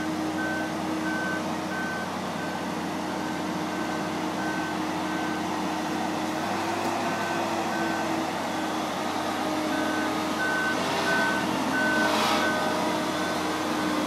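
Mobile boat hoist (travel lift) moving with a boat in its slings: its engine running steadily under a travel alarm beeping at one high pitch, a little under two beeps a second. A brief hiss comes about eleven seconds in.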